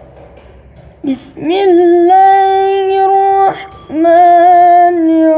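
A boy's voice chanting Quran recitation in the melodic tilawah style: about a second in it starts, then holds two long notes with a slight waver and a short break between them.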